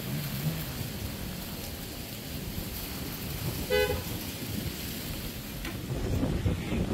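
Wind buffeting the microphone in a steady low rumble, louder near the end. About four seconds in comes one short, high toot.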